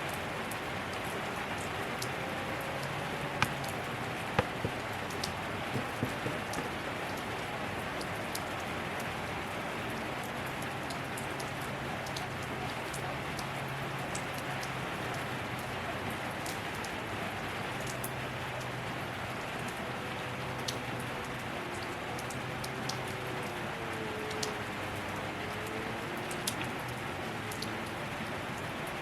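Steady rain falling, with individual drops ticking and a few louder drop hits in the first several seconds. A faint low hum comes and goes beneath it.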